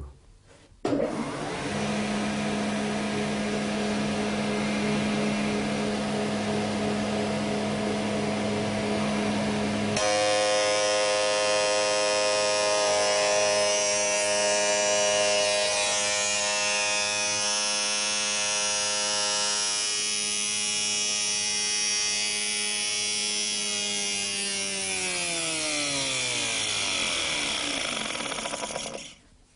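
Spindle moulder running with a steady hum and whine, its stacked box-comb cutters breaking through the face board. Near the end the machine is switched off and the whine falls steadily in pitch as the spindle runs down.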